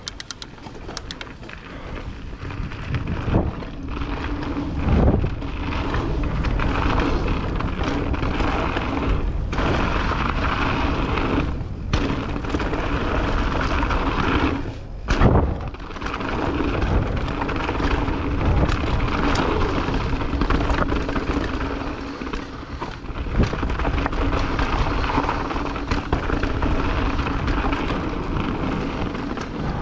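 Mountain bike riding down a trail: steady rolling and rattling noise, low wind rumble on the microphone, and repeated sudden thumps from bumps and drops.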